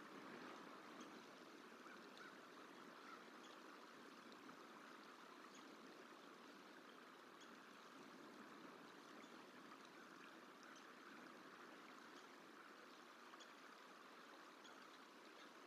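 Faint, steady outdoor rushing noise with a few faint, short high ticks scattered through it.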